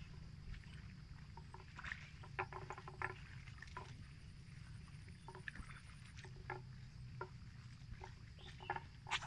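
Water buffalo grazing: irregular short snaps and rips of grass being torn, a few a second, over a steady low rumble of wind.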